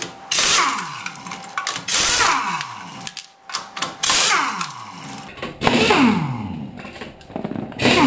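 Pneumatic impact wrench spinning off wheel lug nuts: five short bursts, each dropping in pitch as the tool winds down.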